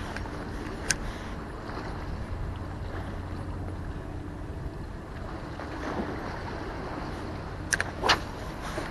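Steady low rumble of wind on the microphone over the open sea, with a sharp click about a second in and two more near the end.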